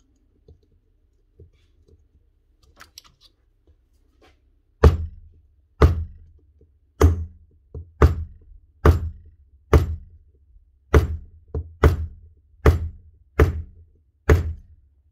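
A series of heavy metal knocks, about one a second and thirteen in all, begins about five seconds in, after a few faint clicks. They come from working a flat screwdriver against the small wedge that holds a nail gun's broken drive pin, to straighten the wedge so it can come out.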